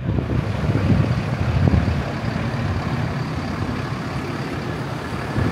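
Road traffic along a busy boulevard: motor vehicles, likely including larger trucks or buses, driving past with a continuous low rumble that is a little louder in the first couple of seconds.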